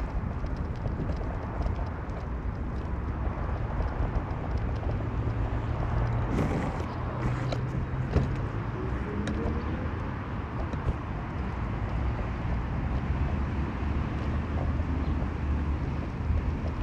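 Car driving, with a steady engine drone and road rumble; about six seconds in the engine's pitch drops and then climbs again over the next few seconds.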